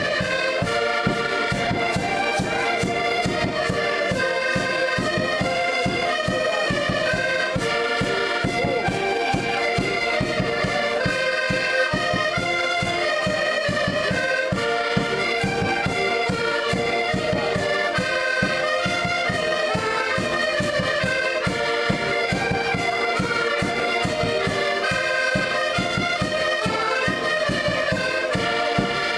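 An ensemble of diatonic button accordions, Portuguese concertinas, playing a traditional tune together, the melody notes carried over a steady, quick beat of bass and chord buttons without a break.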